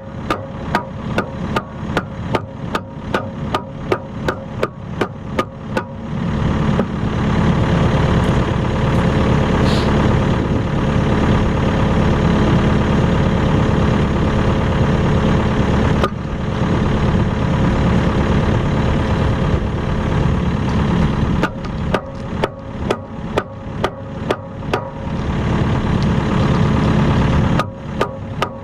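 Kubota KX080-3 excavator's diesel engine running with sharp, evenly spaced knocks about three a second. About six seconds in, the knocks stop and the engine runs steadier and louder for about fifteen seconds. Then it drops back and the knocking returns.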